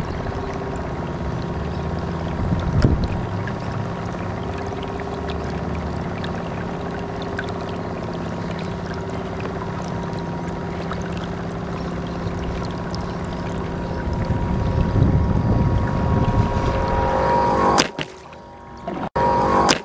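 RC model boat's motor running at a steady speed with water rushing along the hull, heard from a camera on board; the motor gives a steady whine. About eighteen seconds in a splash comes over the bow and the sound breaks up into short gaps.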